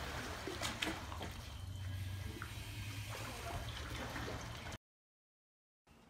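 Swimming-pool water sloshing as an earthquake shakes the pool, over a low rumble, with a couple of sharp ticks about a second in. It cuts off abruptly a little before five seconds.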